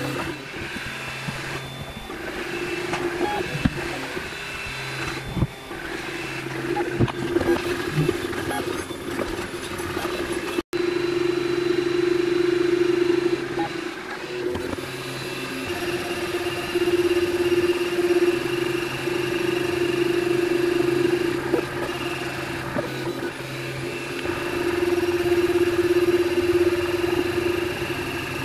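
MakerBot Replicator 2 3D printer running a print: its stepper motors give a steady whine of several held tones that swell and fade as the print head and build plate move. The sound cuts out for an instant about eleven seconds in.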